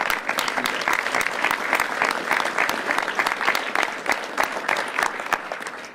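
Applause from a room of people: dense hand clapping that starts all at once and dies away near the end.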